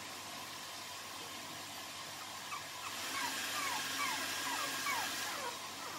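A run of short, high squeaks that slide down in pitch, about three a second, begin about halfway in over a steady hiss.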